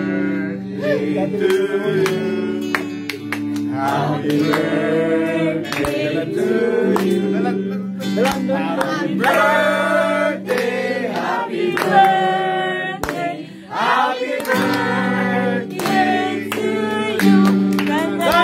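A group of people singing together with guitar accompaniment.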